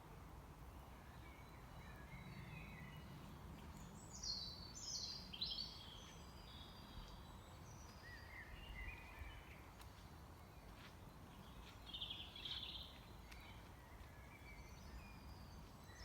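Several small birds chirping and singing faintly over a steady low rumble. The loudest is a run of quick, high, downward-sweeping chirps about four to six seconds in, with another short burst of song near the twelve-second mark.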